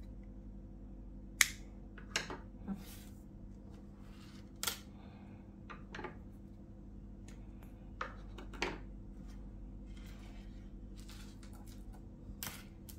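About eight scattered sharp clicks and ticks as monofilament fishing line and small metal swivels are handled on a wooden table, the loudest about a second and a half in, over a steady low hum.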